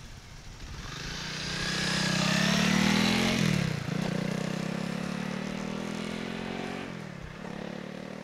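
Honda CRF300L's single-cylinder engine running under way, growing louder over the first few seconds and then slowly fading. The engine note dips and climbs back twice, about four and seven seconds in.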